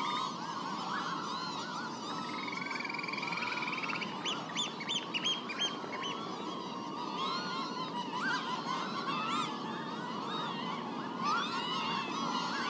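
Many birds calling at once in a dense, continuous chorus, with a rapid trill about two seconds in and a run of sharp high notes around five seconds.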